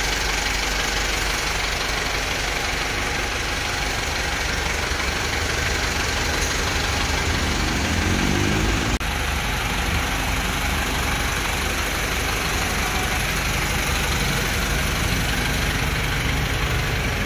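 Toyota Land Cruiser hardtop's engine idling steadily, a constant low hum under an even hiss, with a brief break about nine seconds in.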